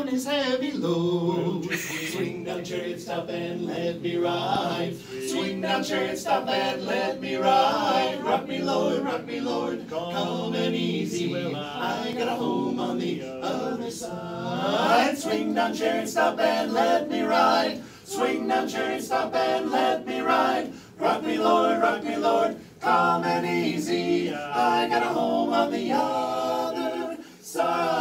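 Male barbershop quartet singing a cappella in four-part close harmony, with short breaks between phrases.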